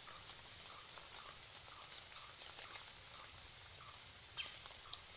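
Quiet woodland ambience: a faint chirp repeating about three times a second, scattered light clicks, and a brief sharp chirp falling in pitch a little over four seconds in.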